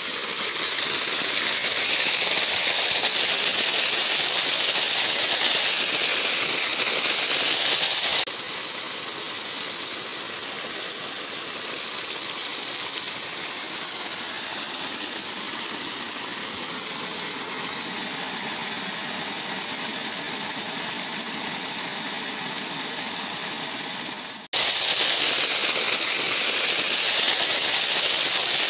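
Tubewell outlet pipe discharging a high-pressure jet of water that splashes onto a rice crop: a loud, steady rushing hiss. It drops sharply quieter about eight seconds in and comes back loud near the end.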